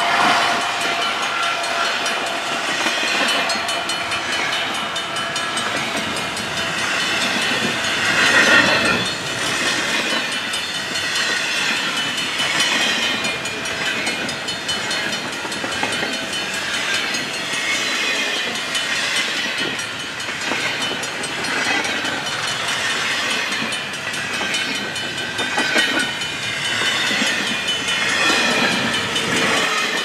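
Double-stack intermodal well cars rolling past at speed, their steel wheels clattering on the rails, with high-pitched squeals that rise and fall. Briefly louder about eight seconds in.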